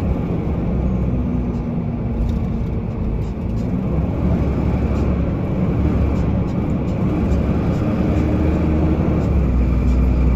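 Steady low rumble of a car's engine and tyres while driving on a city street, heard from inside the cabin. A faint hum comes in twice over the rumble.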